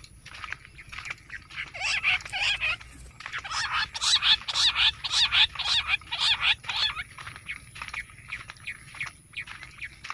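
Bush quail calling: a chorus of rapid, harsh, repeated notes, loudest in the middle few seconds and thinning toward the end.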